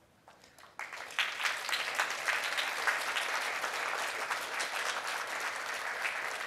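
Audience applauding: a few scattered claps, then full applause within the first second that carries on steadily.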